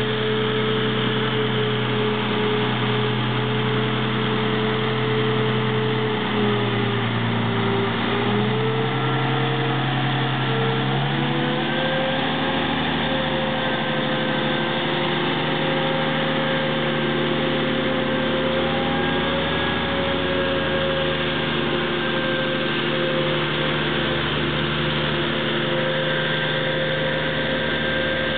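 Diesel engine of a heavy-haulage transformer transport running steadily under low load as the multi-axle modular trailer rig moves slowly. About eleven seconds in the engine note rises slightly, then holds.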